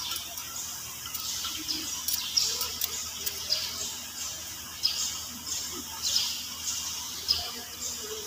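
Small birds chirping over and over in short high calls, with a few light metal clinks from nuts and tools being worked on a torque converter housing.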